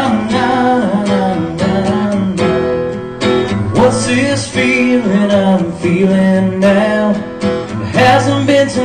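Acoustic guitar strummed in a steady rhythm, playing chords.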